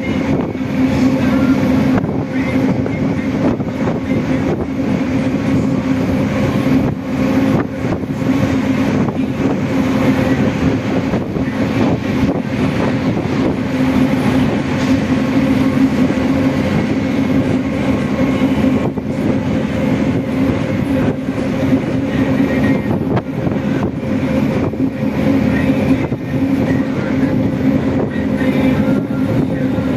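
Steady drone of a river excursion motor ship's diesel engine, a constant low hum over a rushing noise.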